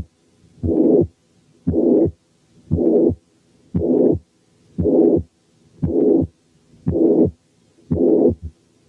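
Recorded heart sounds of mitral incompetence (mitral regurgitation), with a pansystolic murmur filling each systole between the first and second heart sounds. The heart beats evenly, about once a second, with a quiet diastolic gap after each murmur.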